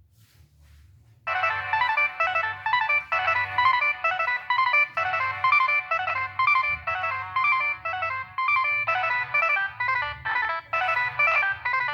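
Nokia 6585i polyphonic ringtone starting about a second in and playing a fast, busy melody of short repeated notes.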